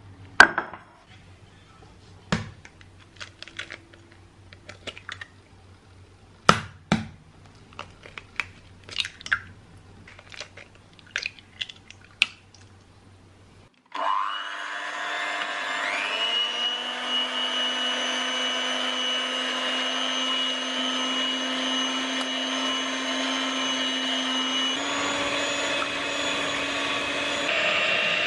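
A run of sharp clicks and knocks, then about halfway through an electric hand mixer starts up, its beaters whirring in a stainless steel bowl of eggs. Its whine steps up in pitch soon after starting and shifts again twice near the end, as the speed setting is changed.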